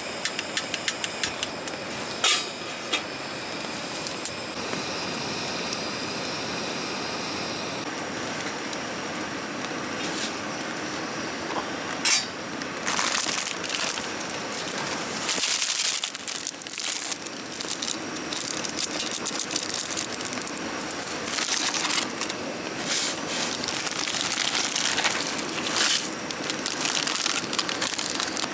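Things being handled: scattered clicks and clinks, then repeated crinkling, rustling bursts, over a steady hiss.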